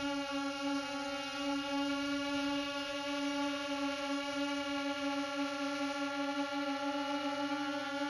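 Parrot Swing minidrone's small electric motors and propellers running in flight, a steady buzzing whine with many overtones, heard from its onboard camera.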